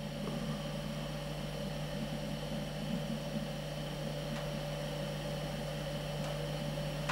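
A steady low hum over a constant hiss, holding one level throughout.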